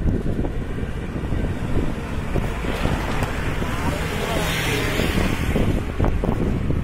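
Wind buffeting the microphone of a camera on a moving bicycle, with road traffic. A passing motor scooter swells and fades around the middle.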